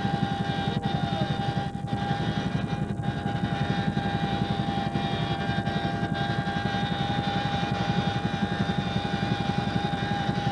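CH-47 Chinook helicopter in flight, heard from inside the cabin with the rear ramp open: a rapid, even rotor beat with a steady high whine over it.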